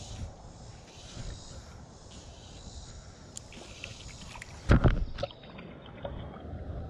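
Steady low noise of river water and wind during a fly cast, broken a little under five seconds in by a short cluster of loud knocks. Soon after, the popper fly sits on the water with rings spreading around it.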